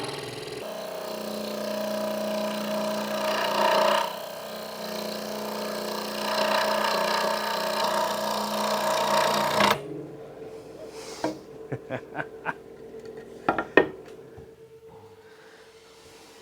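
Hegner Multicut 2S scroll saw running at about 1300 strokes a minute, its blade sawing through 40 mm thick cherry. It stops suddenly about ten seconds in, followed by a few light knocks and clicks.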